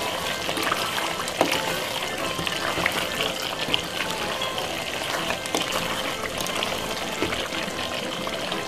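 Curry chicken sizzling and bubbling in its own juices in a hot pot, a steady hiss full of small crackles, while a spoon stirs through the pieces.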